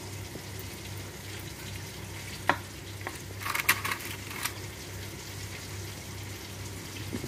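Fish sizzling on a foil-lined tray over a steady low hum, with a knife clicking once about two and a half seconds in and then scraping across the fish and foil for about a second.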